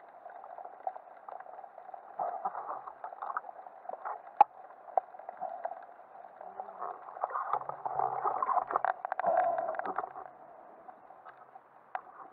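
Muffled underwater water noise heard through a camera housing, with bubbling that swells twice and scattered sharp clicks.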